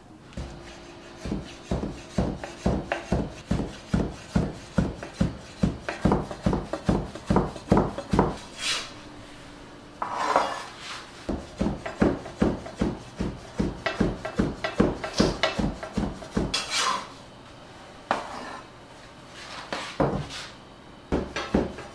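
Knife cutting folded buckwheat soba dough on a wooden board by hand: a steady run of sharp knocks, about three to four a second. It stops briefly a few times, with a short scrape or rustle around some of the breaks.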